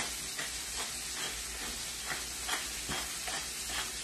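Food sizzling in pans on a gas stove: a steady hiss with irregular small crackles and spatter pops.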